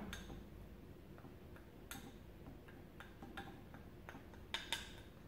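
Teaspoon tapping and clinking lightly against the container while turmeric powder is spooned into its top: a few faint, irregular clicks, the clearest about two seconds in and a pair shortly before the end.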